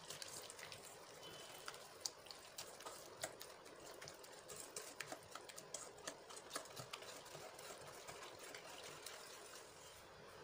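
Wire whisk stirring a thin flour-and-water batter in a stainless steel bowl: faint wet stirring with irregular light ticks of the wires against the steel.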